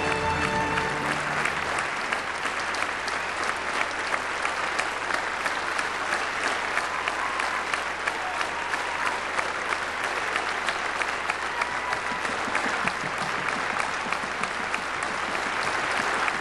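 Theatre audience applauding steadily, a dense patter of many hands clapping; music under it stops about a second in.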